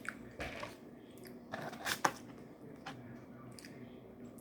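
A person biting and chewing crunchy food close to the microphone: a handful of short crunches, the loudest about two seconds in.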